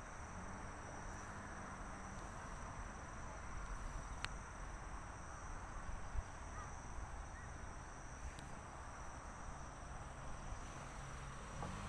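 Faint outdoor ambience with a steady high-pitched insect trill, crickets or similar, and a couple of small clicks.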